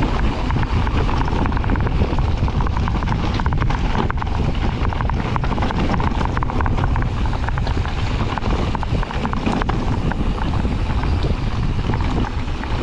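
Wind rushing over the microphone with a heavy low rumble, and an electric mountain bike's tyres and frame clattering over rough dirt trail at speed in many small knocks.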